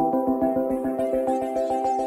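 Background electronic music: synthesizer notes changing over a quick, steady pulse.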